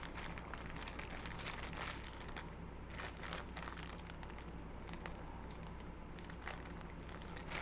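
Faint, irregular crinkling of a clear plastic bag holding test-lead clips as it is handled.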